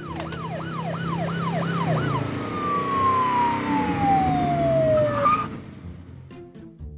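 Police siren wailing up and down about three times a second over an engine rumble. It then sounds one long tone sliding down in pitch and cuts off about five and a half seconds in.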